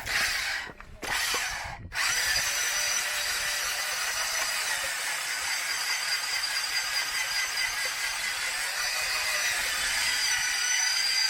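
Delapena hone with rough stones grinding inside a cylinder liner of a 1906 Mirrlees engine, the bore wet with paraffin to help it cut. Two short bursts in the first two seconds, then steady running from about two seconds in.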